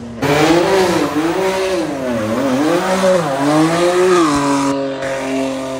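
Sports car engine revving hard, its pitch rising and falling several times, then settling to a steady note near the end.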